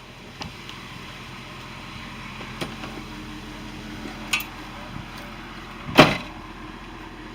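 A steady low hum with a few light clicks, then one loud sharp knock about six seconds in that rings briefly.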